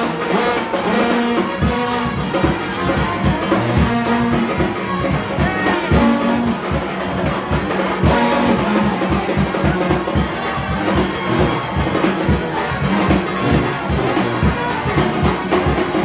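New Orleans second-line brass band playing: trumpets and trombones over a driving drum beat.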